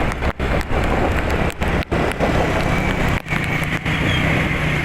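Wind and rain buffeting the microphone over road traffic noise, with a steady low engine hum coming in about three seconds in.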